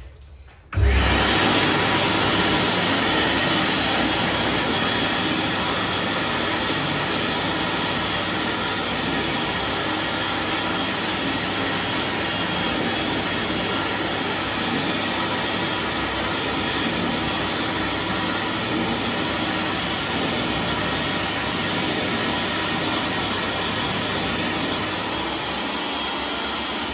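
Metlam HK-100N sensor-activated hand dryer switching on about a second in and blowing steadily at full power, a steady rush of air over a low motor hum.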